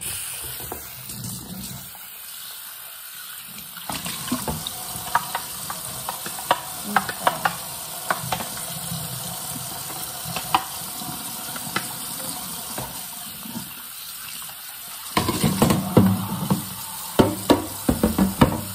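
Kitchen faucet running steadily into the sink while clear plastic food containers are rinsed under it, knocking and clattering against each other and the sink. The knocks start about four seconds in and grow busier near the end.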